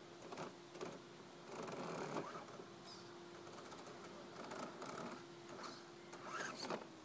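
Small electric motor and gear train of a 1:10 scale RC crawler truck whining at a steady pitch as it creeps over mud, with scattered crunches and clicks from the tyres and chassis on dirt, louder about two seconds in and again near the end.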